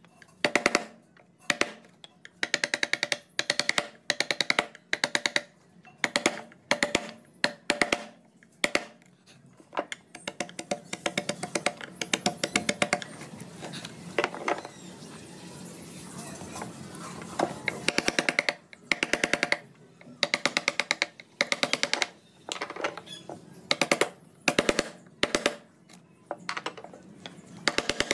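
Steel carving chisel struck with a mallet into wood, in bursts of rapid ringing taps about once a second, with a lull of several seconds in the middle where only a fainter steady sound goes on.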